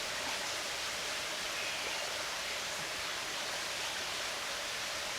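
Mountain stream running nearby with a steady, even rush of water.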